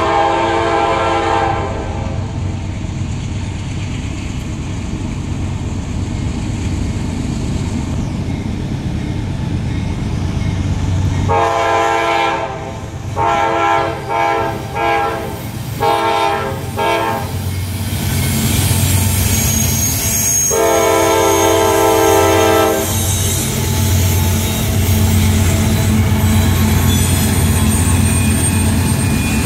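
CSX freight train's diesel locomotive horn, with low engine rumble throughout. A horn blast ends about a second in; about 11 s in there is a long blast and then a string of short toots, and a final blast comes around 21 s. From about 18 s the louder hiss and clatter of passing cars sets in, with high-pitched wheel squeal near the end.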